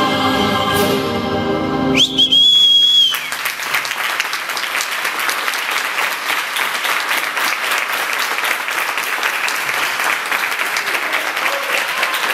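Choral music ends about two seconds in, met by a loud whistle held for about a second, and then steady applause from the audience.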